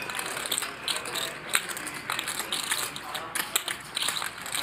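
Poker chips being riffled and shuffled by hand at the table, a rapid run of light clicks, with murmured talk behind.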